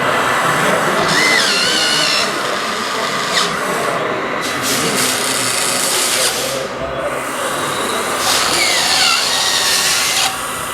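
Small electric motors of radio-controlled model machines whining, rising and falling in pitch a couple of times, over a steady background of crowd chatter.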